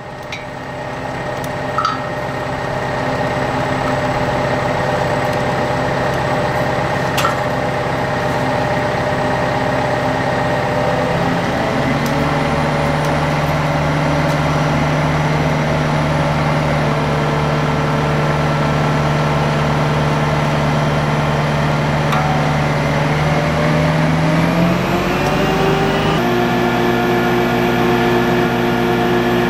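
Liebherr LTM 1250-1 mobile crane's diesel engine running steadily while it hoists a load, its revs stepping up about a third of the way in and again near the end with a brief rising glide. A couple of faint clicks early on.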